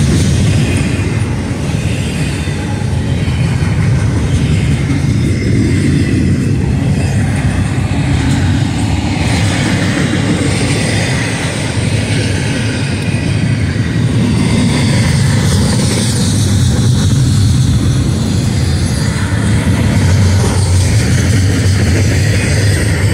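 Double-stack intermodal freight train's well cars rolling past: a steady, loud rumble of steel wheels on rail.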